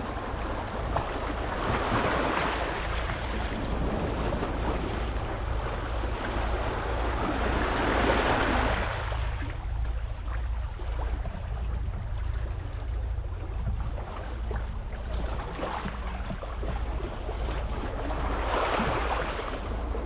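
Small waves washing onto a pebble shore, swelling about two seconds in, again around eight seconds and near the end. Under them runs a steady low rumble of wind on the microphone.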